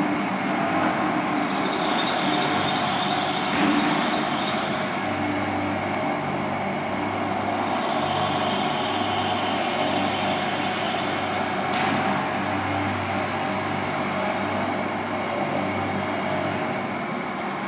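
3000L vacuum mixer homogenizer running on test with its vacuum pump switched on: steady machine noise with a low hum, and a high whine that comes in twice.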